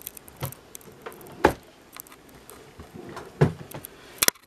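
Things being picked up and handled, with a few soft knocks and clicks. The two loudest come about a second and a half and three and a half seconds in, and a quick double click comes near the end.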